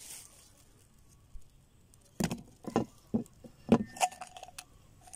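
Bundle of steel bicycle spokes clinking and knocking as it is handled and laid down on a wooden table: a quiet start, then a handful of sharp metallic clinks over the second half.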